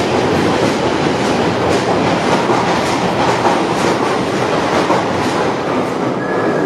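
London Underground Northern Line tube train running along the platform: a loud, steady rumble with wheels clattering over the rail joints.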